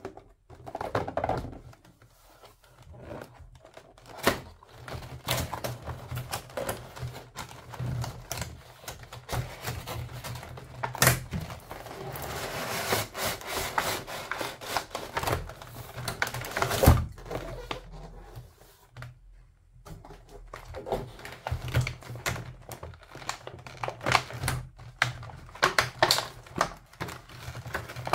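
Hands handling a plastic toy food set and its clear plastic packaging: irregular taps, clicks and knocks of hard plastic, with a few seconds of continuous scratchy rustling near the middle and a single louder knock just after it.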